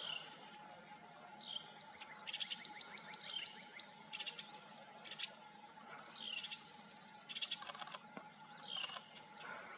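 Songbirds singing: a short falling whistle repeated about every two seconds, mixed with quick chattering notes.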